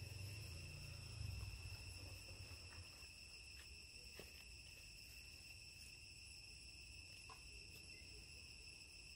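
Faint, steady high-pitched insect chorus, one continuous trill with no pause, with a low rumble during the first couple of seconds and a few faint ticks about four seconds in.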